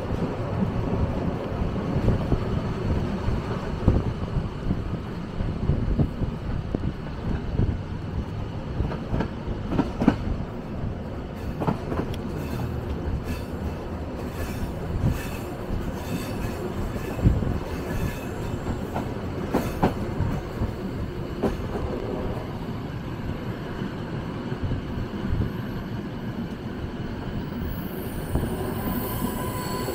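Flåm Railway train running along the track: a continuous low rumble of wheels on rails with scattered sharp clicks and knocks. A high wheel squeal comes in near the end.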